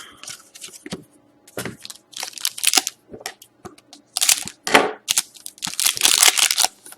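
Crinkling and crackling of plastic trading-card packaging as hockey cards are handled and sorted, in irregular handfuls, with the heaviest rustling about four seconds in and again around six seconds.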